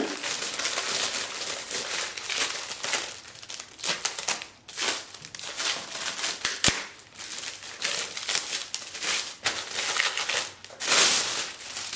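Clear plastic film crinkling in irregular bursts as it is handled and pulled off a tablet keyboard case, with one sharp click a little past halfway.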